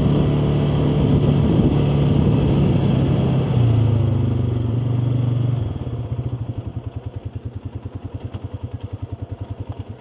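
ATV engine running at steady revs, then dropping to an even, pulsing idle a little past halfway, and stopping at the end.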